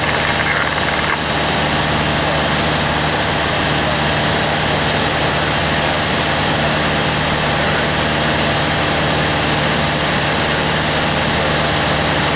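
Piper PA-28-181 Archer's four-cylinder Lycoming O-360 engine and propeller droning steadily in level flight, heard from inside the cabin.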